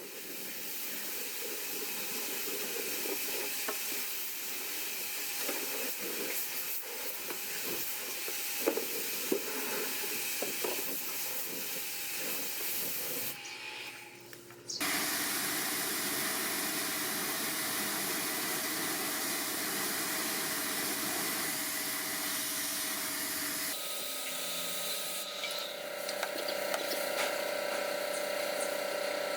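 Steady hissing spray from cleaning equipment, with a few steady machine tones under it. The sound changes abruptly twice, about halfway through and again near the end.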